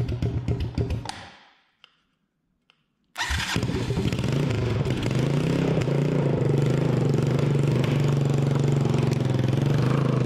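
Rebuilt 1988 Honda TRX200SX single-cylinder four-stroke engine running, then fading out about a second in. After about two seconds of silence it cuts back in abruptly and runs steadily.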